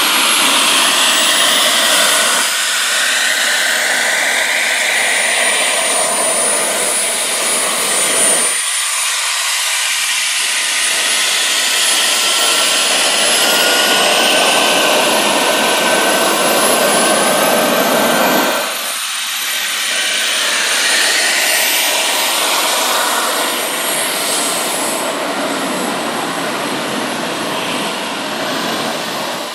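The twin JetCentral Super Eagle model jet turbines of a large RC F-4 Phantom running while the jet taxis: a loud, steady rush with a high turbine whine that shifts in pitch.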